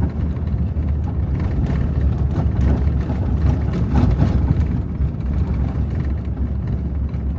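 Car driving along a sandy dirt road, heard from inside the cabin: a steady low rumble of engine and tyres, with faint scattered knocks and rattles from the rough surface.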